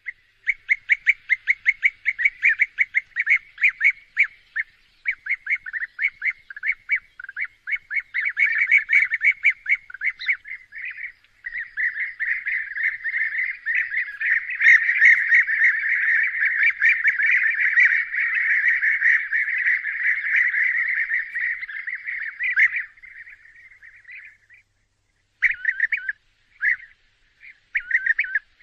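Bee-eaters calling in short, rolling calls repeated in quick succession. From about 11 seconds many birds call over one another in a dense chorus, which fades out around 24 seconds, pauses briefly, and then starts again.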